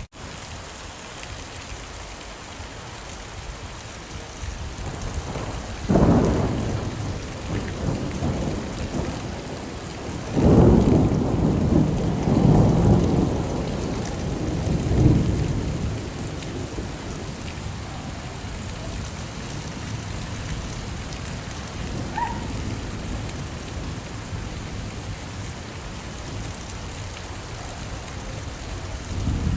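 Steady rain with thunder: a thunderclap about six seconds in, then a longer rolling rumble of thunder from about ten to sixteen seconds in, with a smaller rumble near the end.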